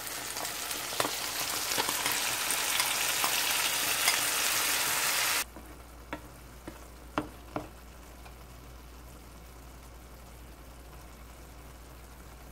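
Soy-and-chili braising sauce sizzling loudly in a hot oiled frying pan of fried tofu, with scattered clicks of a metal spoon. About five seconds in it cuts to a much quieter low-heat simmer with a few occasional pops.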